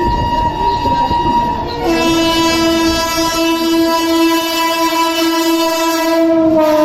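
Indian Railways electric locomotive horn sounding one long held blast: a single high tone at first, joined about two seconds in by a louder, lower multi-note chord, over the rumble of the passing train.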